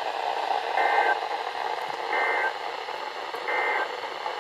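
Emergency Alert System SAME end-of-message data bursts: three short, identical two-tone digital chirps about 1.4 s apart over steady radio static, the signal that closes an alert broadcast.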